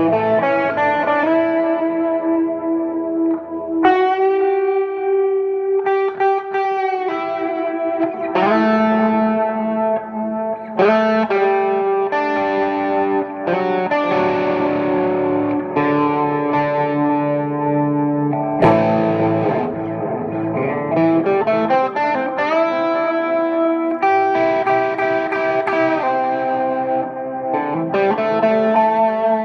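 Electric guitar with a Seymour Duncan JB humbucker, played through a Marshall JTM50-style valve amp: loose noodling of sustained chords and single notes, changing every second or two.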